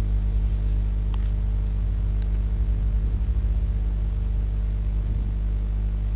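Steady electrical hum with a buzzing stack of overtones, and two faint ticks about one and two seconds in.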